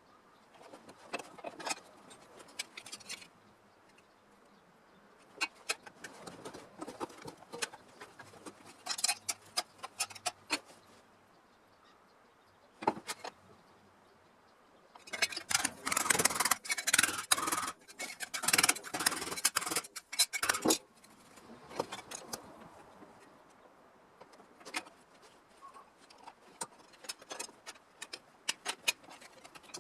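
Hand work on car-body sheet metal: scraping and rubbing strokes with sharp clicks, in irregular bursts, heaviest and loudest for several seconds about halfway through.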